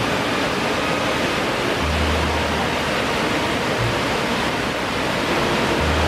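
Yudaki waterfall rushing: a steady, loud roar of white water cascading down a rock face, heard up close. A low rumble swells under it twice.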